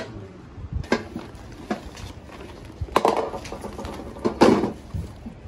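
Plastic kitchenware (a chopping board and bowls) knocking and clattering together as it is packed into a woven plastic sack, with the sack rustling. There are four separate knocks, the loudest about three and four and a half seconds in.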